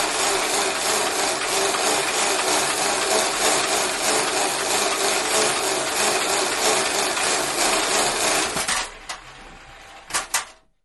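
Exercise bike being pedalled: a steady mechanical whir with an even, rhythmic pulse, which winds down and stops about three-quarters of the way through. A few sharp clicks follow near the end.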